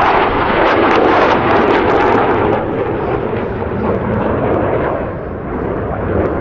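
Military jet aircraft passing: a loud, rough engine roar with crackle in the first couple of seconds, slowly fading.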